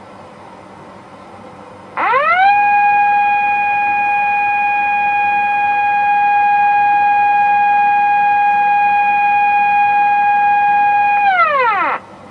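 Outdoor disaster-prevention radio siren sounding one long blast of about ten seconds: it winds up quickly to a steady tone, holds it, then falls away and stops. It is the siren signal for an evacuation advisory, sounded here as a drill.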